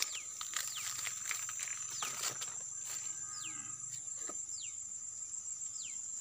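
Steady high-pitched drone of insects, with a bird repeating a short falling whistle about once a second, and a few faint clicks.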